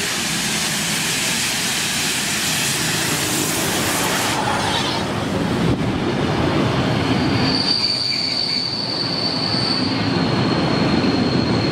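Steam locomotive and its vintage coaches running into a station: first a loud hiss and rumble as the engine passes, then the coaches rolling by. A little over halfway through, a high, steady metallic squeal from the running gear sets in and holds.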